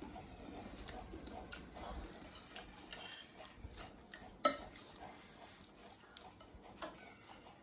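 Metal spoons clinking and scraping against glass plates while scooping chatpat, a series of small light clicks with one sharper clink about four and a half seconds in.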